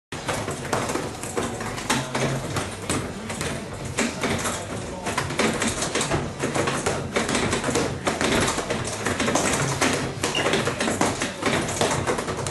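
Fists and forearms striking the padded arms of a Focus Master training rack in a rapid, unbroken flurry of slaps and knocks, several hits a second.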